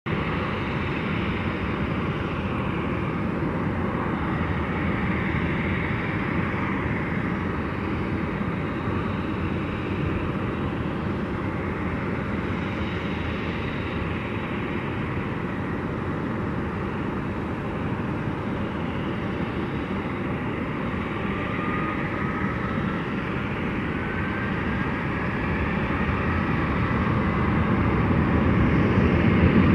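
Boeing 737-800's CFM56 jet engines running, heard as a steady rushing noise with a faint rising whine partway through. The sound grows louder near the end.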